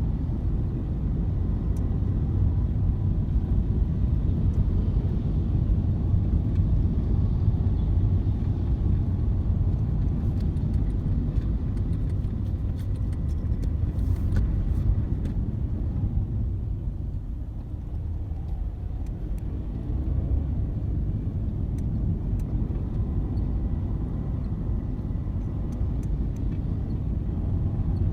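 Steady low rumble of car traffic or a car in motion, easing off briefly a little past halfway.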